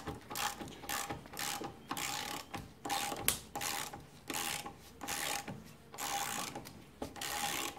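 Socket ratchet clicking in repeated short swings, about two a second, undoing a tight, thread-locked brake caliper mounting bolt on a Yamaha TDR250's front fork.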